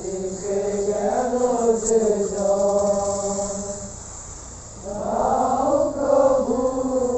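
Voices singing a slow chant in long, held notes, breaking off about four seconds in and starting a new phrase about a second later.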